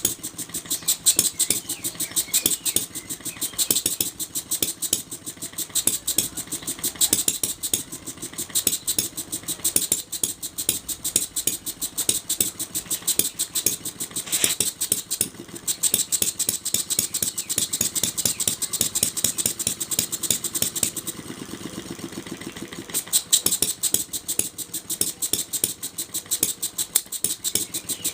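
Small vertical four-stroke model engine, the JONAS, running with a fast, even train of sharp firing clicks and valve-gear ticks. About three quarters of the way in, the beats soften for a couple of seconds, then pick up again.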